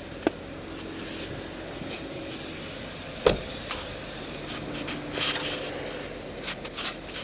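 Steady hum of a car in motion, heard from inside, with scattered light clicks and one louder thump about three seconds in.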